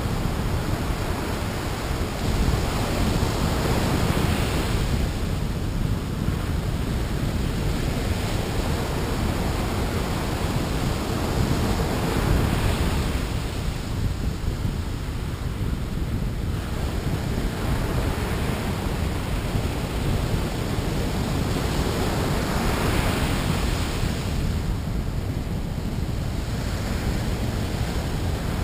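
Ocean surf breaking on the beach, swelling louder every several seconds as waves come in, over a steady rumble of wind on the microphone.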